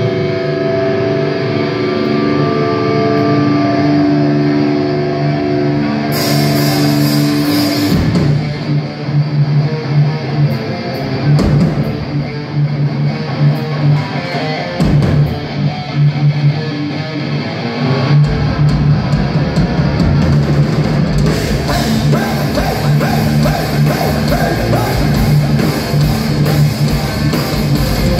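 Heavy metal band playing live, with electric guitars and a drum kit. Held guitar notes ring for the first eight seconds, then the drums and the full band come in.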